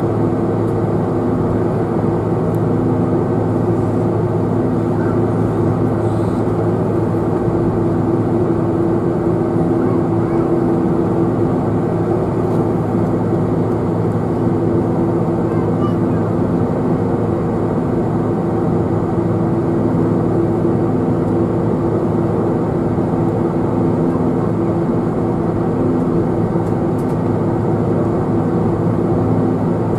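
Cabin noise aboard a Boeing 747-400 taxiing on the ground: the General Electric CF6-80C2 turbofans run at taxi idle under a steady low hum and rumble, with an even hiss over it.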